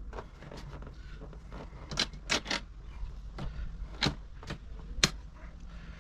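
Scattered sharp clicks and knocks of metal seat parts and tools being handled during seat assembly, a cluster about two seconds in and the sharpest single click about five seconds in, over a low steady hum.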